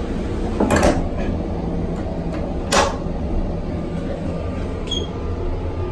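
Steady low rumble of a MARC bilevel rail car in motion, with two sharp clunks about two seconds apart from the restroom door and its lever latch being handled.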